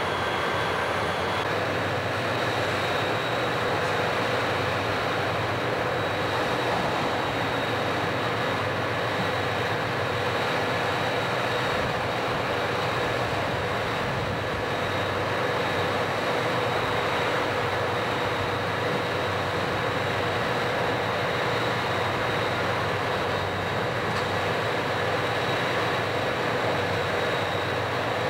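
Several CSX diesel-electric locomotives standing with their engines running steadily, pumping air to charge the train's brake line; a constant drone that does not change.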